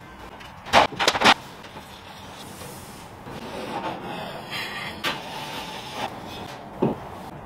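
Work-handling noise: three sharp knocks close together about a second in, then scraping and a few single clicks and knocks as an aluminium stepladder is moved and a long metal profile is handled and pressed up against a plasterboard ceiling.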